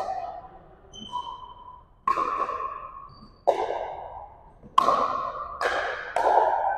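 Pickleball rally: paddles striking the hollow plastic ball, about five sharp pocks a second or so apart that come quicker near the end. Each one rings on in a large gym's echo, with fainter pocks from neighbouring courts.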